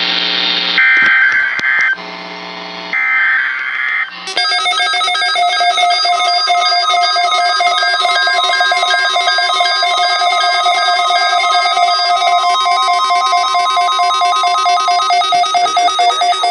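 NOAA Weather Radio required weekly test: the last short, raspy bursts of the SAME digital header, three in the first four seconds, then from about four seconds in a long, loud, steady alert tone made of several pitches at once, which marks the start of the test.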